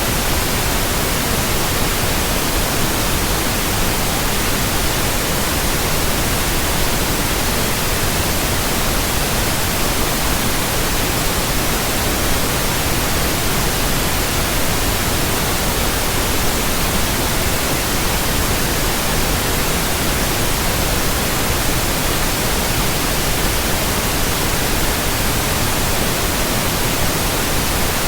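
Pure white noise: a steady, unchanging hiss spread evenly across all pitches.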